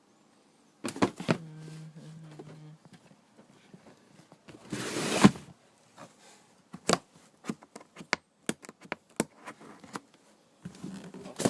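Handling of sneaker boxes and packaging: scattered knocks and clicks, a loud rustle of paper about five seconds in, then a quick run of small clicks and taps. A low steady hum sounds briefly a little over a second in.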